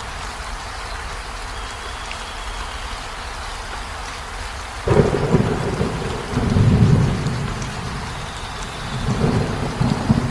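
Steady rain falling, then about halfway through a sudden thunderclap breaks into deep rolling thunder, which swells twice more.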